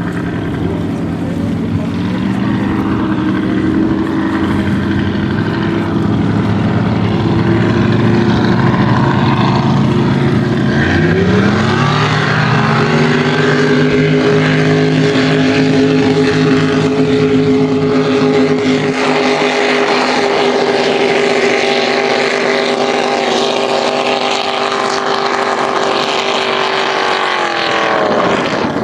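Motorboat engine running at a steady pitch, then rising about eleven seconds in as it speeds up, holding steady at the higher pitch and dropping away just before the end.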